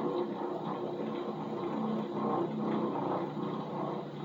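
Bench grinder coasting down after being switched off, its motor and wheels still spinning with a steady hum as it slowly loses speed.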